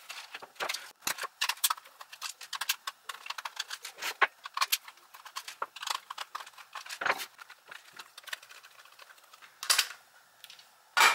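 Hard plastic parts of a Furby toy clicking and rattling as its body shell is handled and pried apart with a thin metal pick: a run of quick, irregular light clicks, with a couple of louder knocks near the end.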